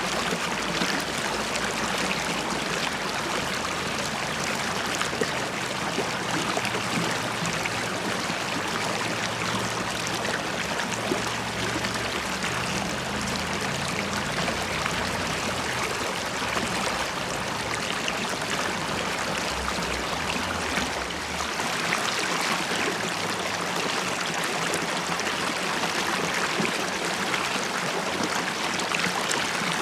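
River water flowing and bubbling over stones: a steady rushing and gurgling with no break.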